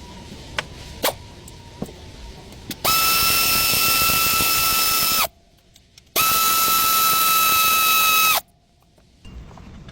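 A few light clicks, then a power tool runs twice for about two seconds each, a steady high whine over a hiss that starts and stops abruptly, as when working on the belt tensioner.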